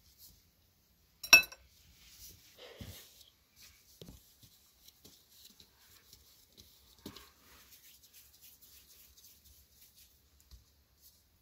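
Soft thuds, pats and rustles of bread dough being pulled apart and set down in balls on a floured oilcloth tablecloth. One sharp ringing clink about a second in.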